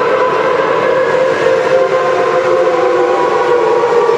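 Industrial sublimation rotary heat press running: a loud, steady mechanical whine of several held tones over a constant noise.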